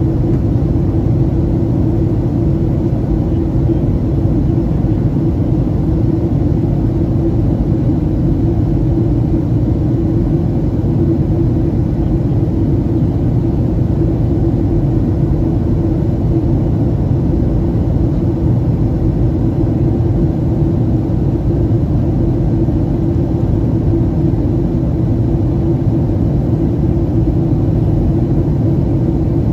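Steady cabin drone inside a Boeing 737-800 in flight: the CFM56-7B engines and airflow, heard from a window seat as a loud, even low rumble with a fainter hiss above it.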